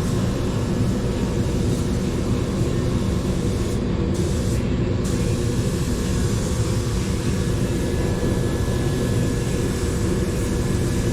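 A steady, even machine drone with a low hum, the running of shop equipment.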